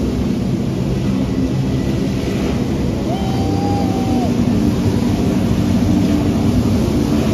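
Personal watercraft engines running hard to drive flyboard water jets, a steady loud drone over the rush of spray, growing a little louder near the end. A short whistle-like tone rises and falls about three seconds in.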